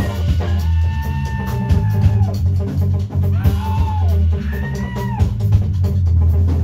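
Live rock band playing: drum kit, electric bass and electric guitar, loud and steady, with long held melody notes that slide up and down in pitch over the top.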